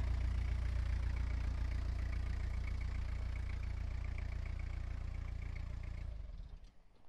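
1988 Toyota HiAce 4x4 truck engine idling with a light regular tick, which the owner puts down to neglected, gummed-up valves and lifters; the engine is shut off about six seconds in.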